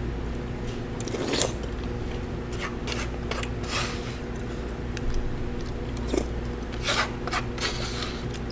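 Someone eating hot soft-tofu soup from a bowl with a metal spoon: a few short slurps, with small spoon scrapes and ticks against the bowl. A steady low hum runs underneath.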